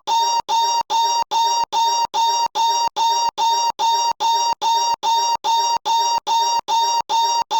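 A short comic noise clip looped back to back, the same burst repeating about two and a half times a second with a brief cut between each, every copy carrying a high steady tone.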